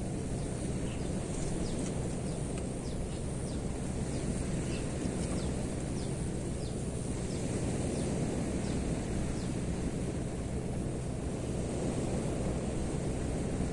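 Steady low rumble, with many short, high, downward-sliding bird chirps over it.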